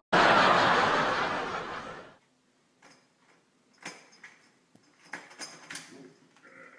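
A loud rushing noise that fades out over about two seconds, then scattered small clicks and rattles from an interior door's knob and latch as the door is opened.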